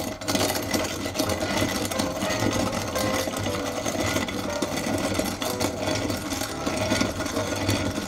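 Kalita Dia Mill, a cast-iron hand-cranked flywheel coffee grinder, grinding French-roast coffee beans. The beans crackle and crunch steadily as the wheel is turned.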